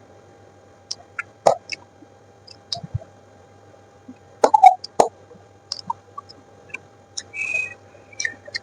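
Close-miked eating sounds: irregular wet mouth clicks and smacks as food is chewed, loudest about four and a half to five seconds in, with a short hissy sound near the end.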